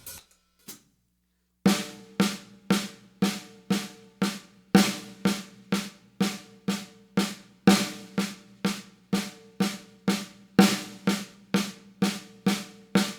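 Six-stroke roll (right, left, left, right, right, left) played on a snare drum, repeated in an even groove. Only the first note of each group is accented and the rest are played quietly, so loud strokes come about twice a second with soft strokes between them. It starts about a second and a half in, after a single light tap.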